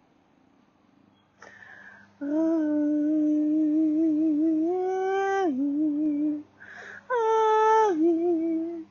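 A woman's voice toning: two long, wavering hummed or sung notes, each preceded by an audible in-breath. The first note, about four seconds long, lifts briefly in pitch and drops back; the second starts higher and steps down.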